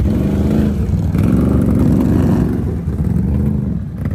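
Can-Am ATV engine running in mud, its pitch rising with throttle about a second in and easing off again, with other quad engines running close by.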